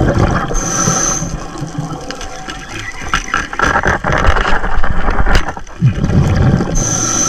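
Whale song heard underwater: a short high squeal about half a second in and again near the end, and mid-pitched calls around three to four seconds in, over a low rumble and constant crackling.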